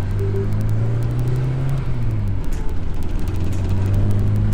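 Acura Integra's engine and road noise heard from inside the cabin while driving: a steady low drone whose pitch shifts about two seconds in.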